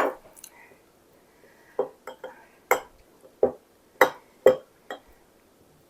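Clinks and knocks of a utensil against dishes and glassware: about seven sharp, separate strikes, some ringing briefly, spread over a few seconds while maraschino cherries are drained and handled.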